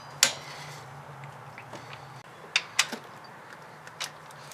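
Sharp metallic clicks of a click-type torque wrench and socket being worked on cylinder head bolts. There is one loud click just after the start, a quick pair about two and a half seconds in, and a few fainter clicks near the end.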